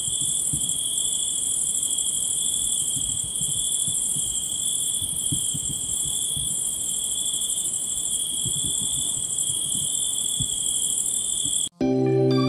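Night insect chorus of crickets: a steady high-pitched chirring with a second, lower continuous tone beneath it, and faint low thuds underneath. It cuts off abruptly near the end when music begins.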